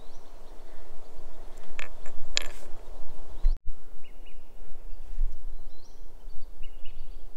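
Wind rumbling on the phone's microphone in open outdoor air, with a few sharp clicks about two seconds in and faint high chirps in the second half.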